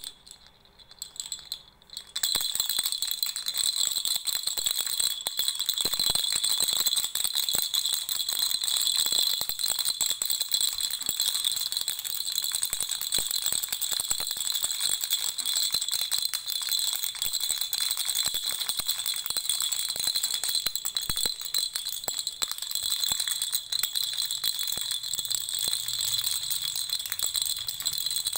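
Baby rattle being shaken, a dense, fast rattling with a ringing edge. A few short shakes come first, then continuous shaking from about two seconds in.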